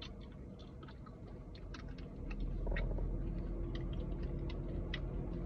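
Close-up crunchy chewing of fried broccoli and cheddar bites: irregular crisp crunches and clicks of the mouth. A low steady hum underneath grows louder about two seconds in.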